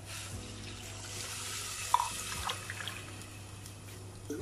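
Water poured from a plastic bottle into a stainless steel tumbler, a steady splashing as the cup is filled to measure water for the rice. A single sharp clink about two seconds in.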